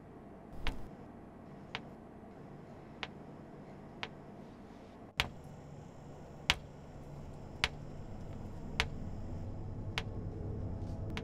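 Sharp, evenly spaced ticks, a little slower than one a second, like a slow clock, over a faint hum. A low drone swells under them in the second half.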